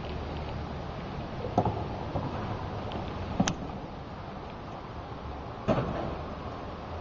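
Three short, sharp knocks, spaced about two seconds apart, over a steady low background noise.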